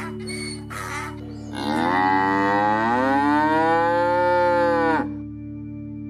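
A few short calls, then a loud, long farm-animal call of about three seconds whose pitch rises and then falls, over soft background music.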